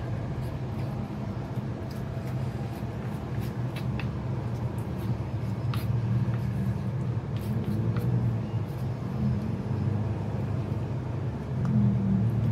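A steady low mechanical hum throughout, with scattered light clicks and scrapes of a plastic spoon against a clay plate and a paper cup of rice.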